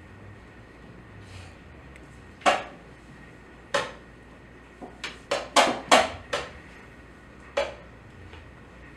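Wooden chess pieces knocked down on the board and chess clock buttons slapped in a blitz game: two single knocks, then a quick run of about six in a second and a half, then one more.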